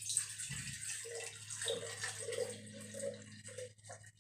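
A drink poured steadily from an aluminium can into a large glass mug, the liquid splashing into the filling glass and tapering off near the end.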